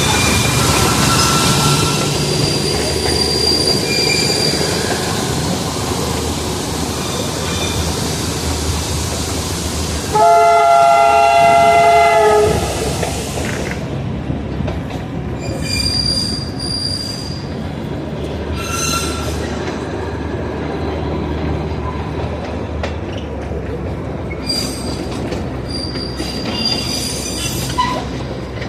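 Darjeeling Himalayan Railway narrow-gauge toy train running with a steady rumble and rattle. It sounds one horn blast about ten seconds in, lasting about two seconds. In the second half its wheels squeal high and thin, on and off.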